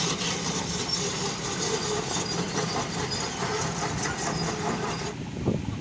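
Heavy diesel engine running loud and steady under load, with a low hum and a dense, rattly noise over it; about five seconds in the sound cuts abruptly to a duller engine sound.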